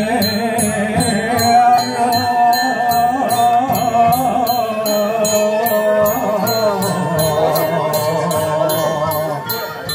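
Ritual chant sung in long, wavering held notes, over a bell rung in a quick, steady rhythm of about three strokes a second.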